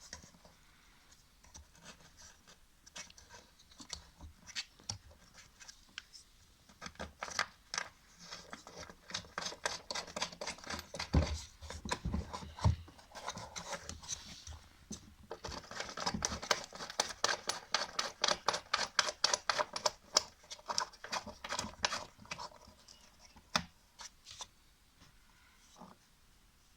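Hand tools clicking and scraping on metal as the washing machine motor and its belt are fitted and the motor's mounting screws are worked. Through the middle come long runs of quick, even clicking.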